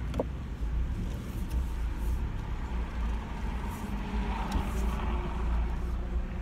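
Car engine and road rumble heard from inside the cabin, a steady low drone, with a brief squeak just after the start.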